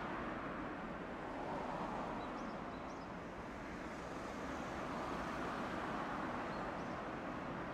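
Steady noise of road traffic, with cars and a taxi driving past close by. A few faint, short, high chirps come through about two to three seconds in and again near the end.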